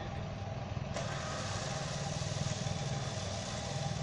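Off-road 4x4's engine running steadily under load as the vehicle works in deep mud.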